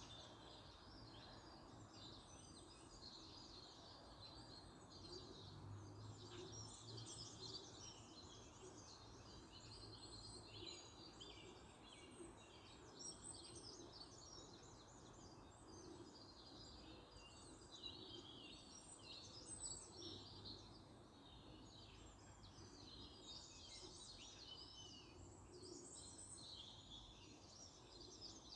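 Faint outdoor birdsong: many birds giving short chirps and trills all through, over a low steady background rumble.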